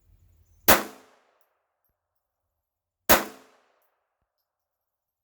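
Two shots from a Beretta 21A .22 LR pistol fired without a suppressor, about two and a half seconds apart, each a sharp crack with a short ring-out.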